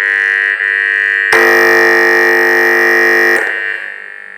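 Stranger MCA 316 amplifier speaker playing a loud, steady, buzzer-like electronic tone. About a second and a half in, a louder, fuller sound of several steady pitches joins for about two seconds, then cuts off. The speaker puts out full, loud sound now that its jammed AUX input switches have been freed with oil.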